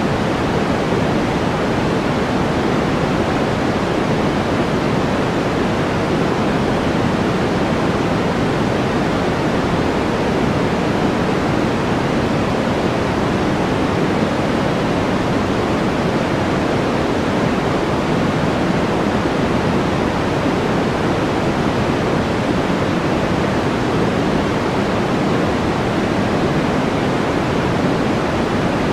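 Steady background white-noise track: an even, unchanging rushing hiss, fuller in the low and middle range than in the highs.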